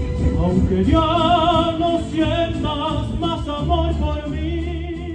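A male singer performing live through a PA system, coming in about a second in and holding long notes with a wide vibrato over amplified accompaniment with a steady bass.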